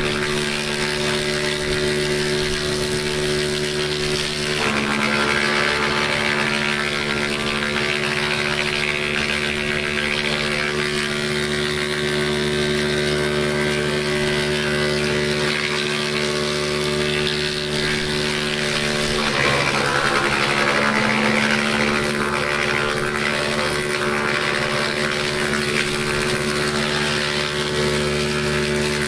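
Stationary 11 kW, 400 V electric wood chipper running with a steady hum while it chips a long branch fed into its hopper. Grinding noise joins in about five seconds in, and the sound shifts again around nineteen seconds as the load on the rotor changes.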